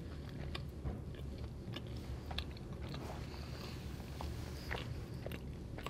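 Close-miked chewing and wet mouth clicks of a person eating curry and rice, with scattered short smacks over a low steady hum.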